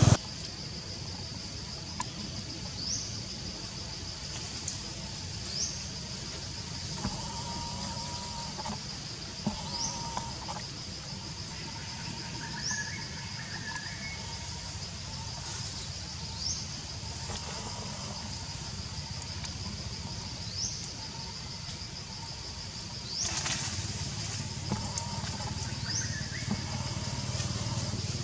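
Outdoor forest ambience: a steady high-pitched drone with a short rising chirp repeating about every two seconds, over a low rumble, with a few faint calls in between.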